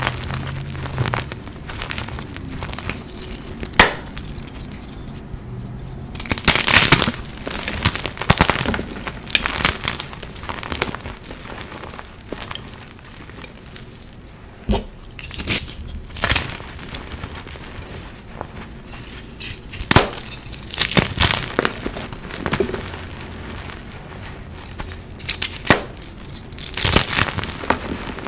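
Hands squeezing and crumbling blocks of dyed gym chalk into powder: crisp crunching and crackling in repeated bursts, with a few single sharp snaps as pieces break.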